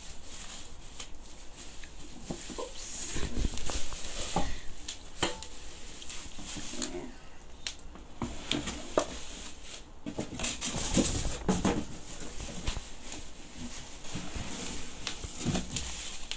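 Bubble wrap crinkling and rustling as wrapped aluminium pots are handled and lifted from a cardboard box, with scattered light knocks and clicks.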